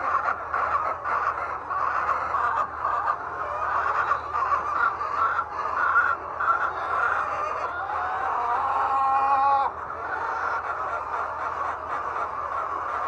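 A large flock of laying hens clucking and calling over one another, with one louder drawn-out call rising above the rest about two-thirds of the way through. A low steady hum runs underneath.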